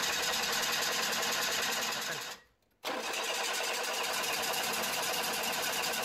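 Mitsubishi Minicab engine running steadily on its newly fitted fuel pump, with fuel pressure up over 40 psi. The sound cuts out completely for about half a second a little past the middle, then carries on unchanged.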